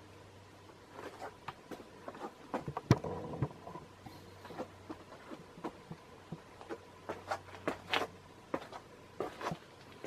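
Irregular light clicks and knocks, the loudest about three seconds in, over a faint low steady hum.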